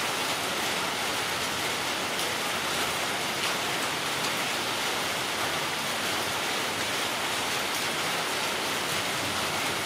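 Steady, even hiss of background noise, like rain, with a few faint ticks.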